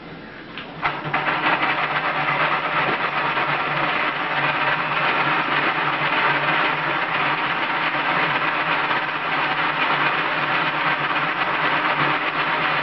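Small electric motor of a Merkur metal construction-set model switching on with a click about a second in, then running steadily with an even whirr as it drives the model.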